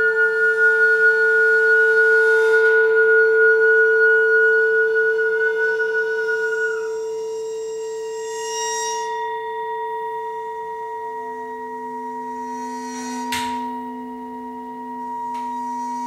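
Flute holding a long high note over the sustained ringing of singing bowls and gongs; the flute stops about seven seconds in and the bowls and gongs ring on. A deeper tone joins at about eleven seconds, and a single sharp strike sounds near the end.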